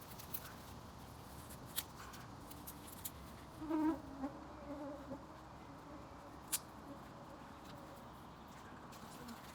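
Small wood fire of twigs with a few sharp crackling pops, and a fly buzzing close by for about a second, nearly four seconds in.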